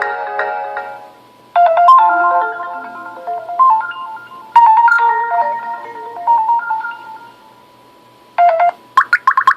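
LG G4 stock ringtones playing one after another. The tail of one tune fades out in the first second. A new melodic electronic ringtone starts about a second and a half in, plays in two phrases and fades. Near the end another ringtone begins with a fast run of short bright beeps.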